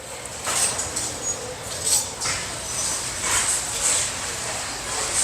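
Cardboard jigsaw puzzle boxes being handled and slid on a shelf: a series of short scraping, rustling sounds.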